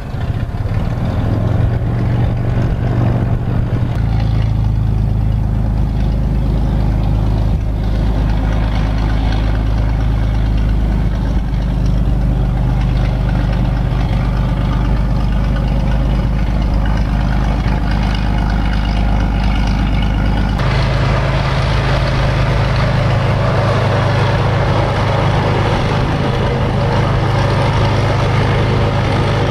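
Cessna Turbo Skylane (T182T) light aircraft's turbocharged six-cylinder piston engine and propeller running at low taxi power, a steady low hum. The sound turns abruptly brighter about twenty seconds in.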